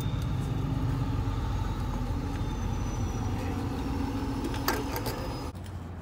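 Steady low rumble of motor vehicle noise, with a single sharp click just before five seconds; about five and a half seconds in it drops abruptly to quieter outdoor sound.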